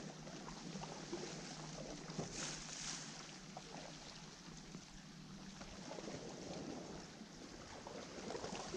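Faint seaside ambience: calm sea washing gently against the rocks, with light wind on the microphone and a faint steady low hum.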